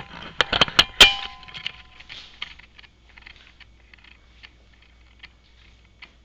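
A quick run of sharp clanks and clicks in the first second, the loudest followed by a brief metallic ring, then faint scattered ticks.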